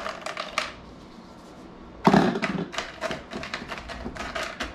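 Ice cubes clattering and clicking into a Ninja blender jar as they are poured from a bowl, with one louder thunk about two seconds in, then scattered clicks as the ice is pressed down by hand.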